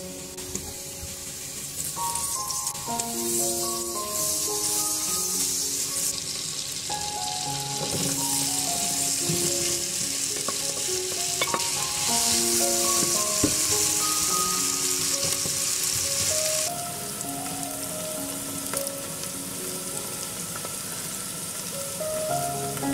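Chopped onions sizzling in hot oil in a non-stick frying pan, stirred with a wooden spoon; the sizzle swells about two seconds in and eases a little past the middle. Soft background music with a plucked melody plays under it.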